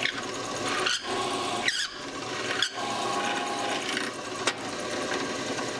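A drill press boring a 1/2 inch hole into a hardwood block, the bit cutting with a steady whine from the machine under the noise of the cut. The sound breaks off briefly a few times in the first three seconds, then runs on unbroken.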